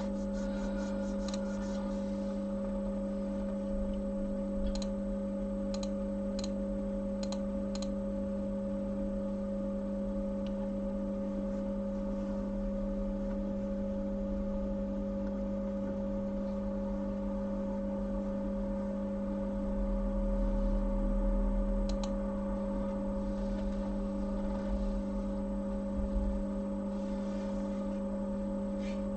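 Steady electrical hum from bench equipment, with a handful of light clicks around 5 to 8 seconds in and once more about 22 seconds in.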